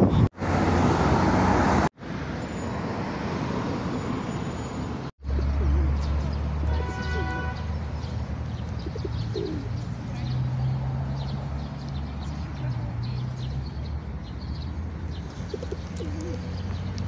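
City park ambience: a low steady hum of road traffic, with pigeons cooing a few times and small birds chirping. The sound drops out abruptly three times in the first five seconds.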